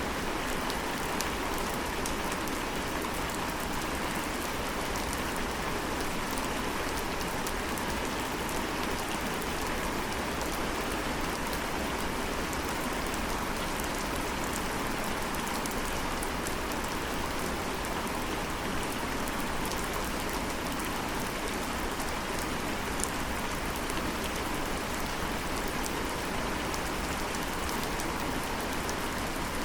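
Steady rain falling, with a dense patter of individual drops hitting surfaces.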